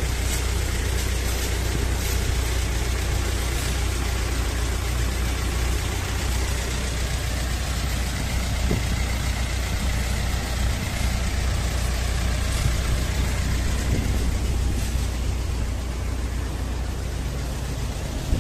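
Steady street traffic noise, with the low hum of a vehicle engine running close by.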